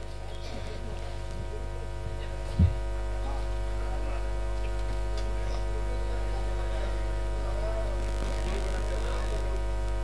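Steady electrical mains hum from a PA system, with a single knock of the microphone being handled about two and a half seconds in, after which the hum is a little louder.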